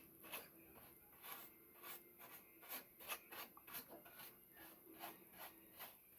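Soft brush sweeping dust off a PlayStation 3 motherboard in short, faint strokes, about two a second.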